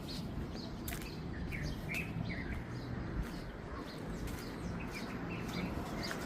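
Small birds chirping: many short, quick chirps scattered throughout, over a steady low background rumble.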